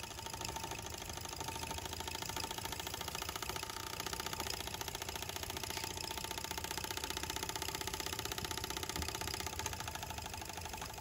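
Mamod toy steam roller's small steam engine running steadily, with rapid, even exhaust beats. Its crank runs in bronze bearings fitted in place of worn ones.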